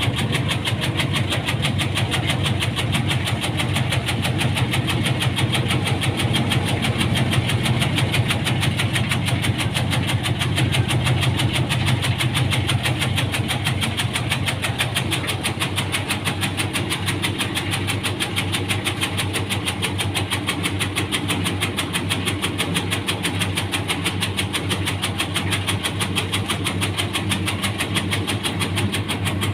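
Motor-driven tobacco-cutting machine running steadily, with a fast, even mechanical pulse.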